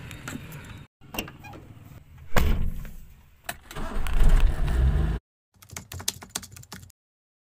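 Keys clicking and rattling in an old hatchback car's locks, a loud thud about two and a half seconds in, then the engine being started with the ignition key and running for about a second before cutting off suddenly. More short key clicks follow near the end.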